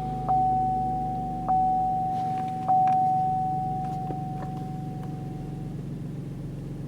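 Chevrolet Traverse 3.6L V6 idling steadily just after start-up, with the dashboard warning chime dinging three times, a little over a second apart, each ding fading out.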